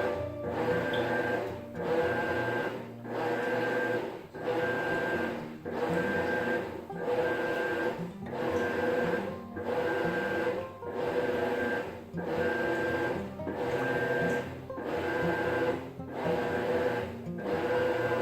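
Maytag top-load agitator washing machine running with a steady whine that dips briefly about every second and a quarter, in an even repeating rhythm.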